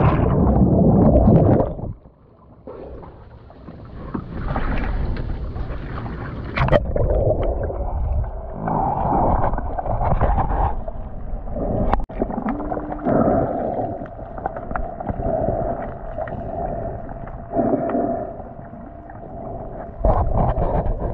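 Muffled underwater noise picked up by a submerged camera: a low rumbling wash of water with a few sharp knocks and a faint steady hum through the middle. The sound dips briefly about two seconds in.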